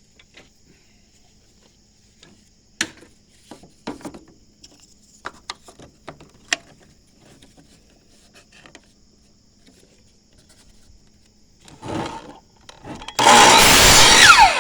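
Scattered knocks and clunks of 2x4 offcuts being handled and positioned, then near the end a power saw cuts through a 2x4 in one loud stroke of about a second, its blade whining down in pitch as it spins to a stop.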